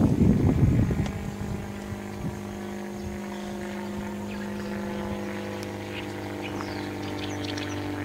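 Wind buffeting the microphone for about the first second, then a steady engine drone with a low hum that holds an even level.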